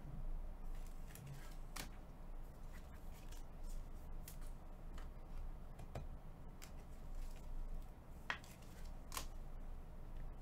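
Trading cards and packs being handled on a table by gloved hands: a few scattered sharp clicks and light rustles over a low steady hum.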